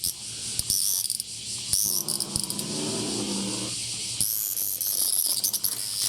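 A cicada caught by a cat, buzzing in harsh rasping bursts that start and stop, the distress buzz of a trapped cicada. A low, steady cat growl runs underneath from about two seconds in to nearly four.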